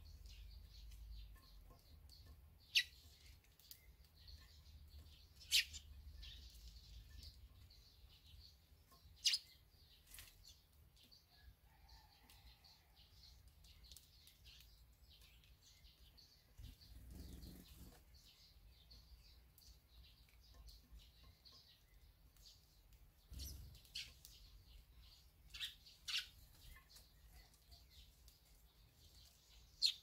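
Short, sharp bird chirps, single or in quick pairs, a few seconds apart over a faint low hum.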